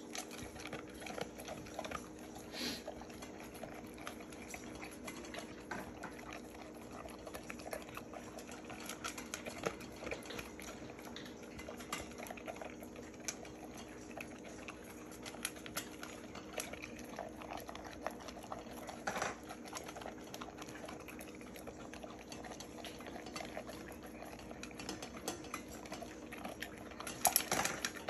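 Chocolate Labrador retriever eating chopped vegetables from a stainless steel bowl: continuous chewing and licking with many small, irregular clicks of teeth and tongue on the metal, and a louder cluster of clacks shortly before the end.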